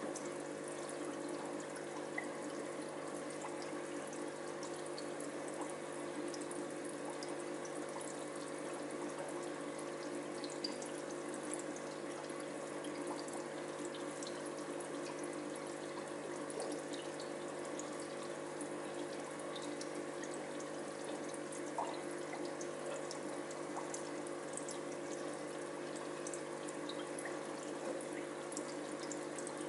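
Aquarium filter running: water splashing and trickling steadily over a steady hum, with small scattered drips.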